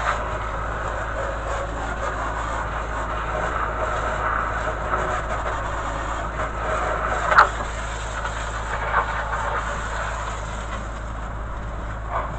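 Steady hiss of a pressurised spray gun misting termiticide in a subfloor crawlspace, over a low steady hum, with a few brief knocks, the sharpest about seven seconds in.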